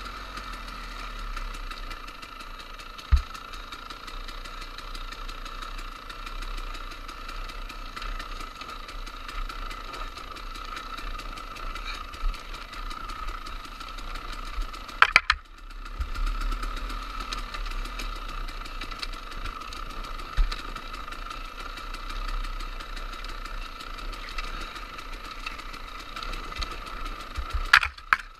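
Dirt bike engine running steadily while riding, with a few sharp knocks over rough ground and a brief drop in sound about halfway.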